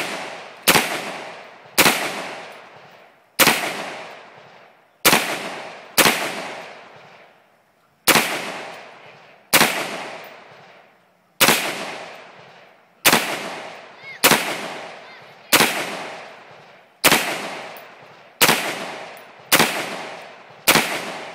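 AR-15 rifle firing single semi-automatic shots at a steady, unhurried pace, about one every one to one and a half seconds. Each sharp crack is followed by a long echo that dies away before the next shot.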